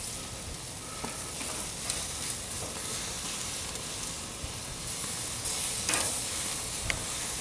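Barbecue-sauced country-style pork ribs sizzling on a hot grill grate as the sauce caramelizes, with a few sharp clicks as metal tongs flip the ribs against the grate.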